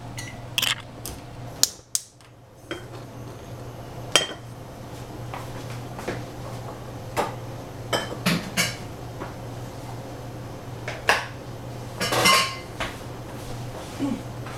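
Scattered clinks, knocks and clatters of kitchenware, pots, dishes and utensils being handled, with a longer clatter about twelve seconds in, over a steady low hum.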